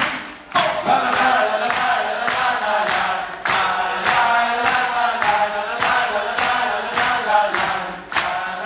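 Many voices singing a chorus together, over hand-clapping in time at about two claps a second. The clapping runs alone for the first half-second before the singing comes in, and the singing fades near the end.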